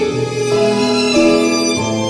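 Background music: a slow violin melody of held notes over sustained low accompaniment.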